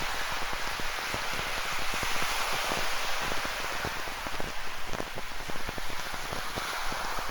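Rain falling, with many individual drops tapping close by over a steady hiss.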